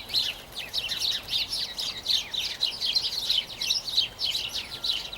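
A flock of small birds calling all at once in a dense, unbroken chatter of short, high chirps that overlap one another, the noisy squabble the uploader calls a birdie rumble.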